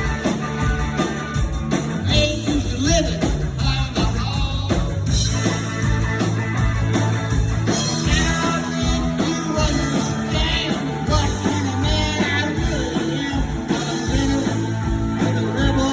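Live rock band playing a loud, steady rock and roll song with electric guitar and drums.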